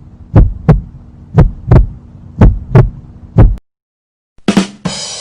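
Heartbeat sound effect: paired low thumps (lub-dub) about once a second over a steady low hum. It stops a little over halfway through. Near the end a sharp hit and a bright rushing noise begin the next effect.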